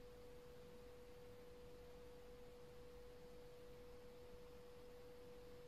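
Near silence: room tone with a faint, steady, unwavering mid-pitched hum at a single pitch.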